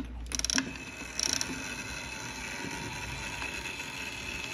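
Kymograph drum's motor starting up with two short rattles in the first second and a half, then running with a steady whir as the paper-covered drum turns.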